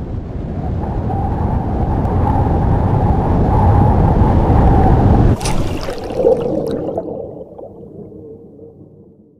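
Intro sound effect: a deep rushing rumble that swells for about five seconds, breaks off with a sharp hit, then a ringing tail that fades away.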